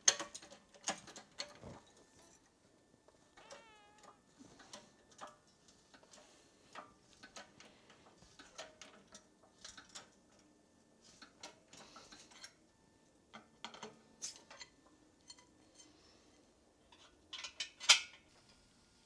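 Scattered clicks, taps and scrapes of hand tools working sheet metal, with a brief wavering squeak about four seconds in and a cluster of sharper clicks near the end, the loudest of them.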